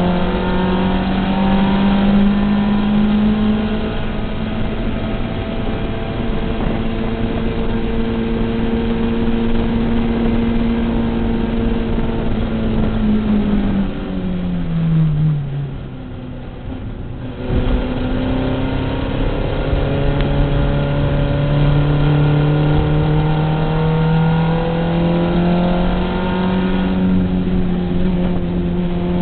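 Volkswagen race car's engine heard from inside the cabin, held at high revs. About halfway through, the revs fall away and the sound drops for a few seconds as the driver lifts off for a corner. It then picks up again and climbs steadily under acceleration, with a brief dip near the end.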